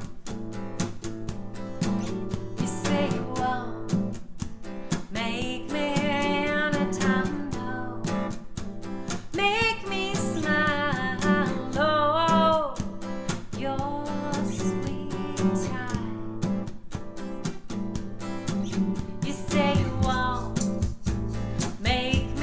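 A song: steadily strummed acoustic guitar chords with a voice singing phrases over them, its held notes wavering with vibrato.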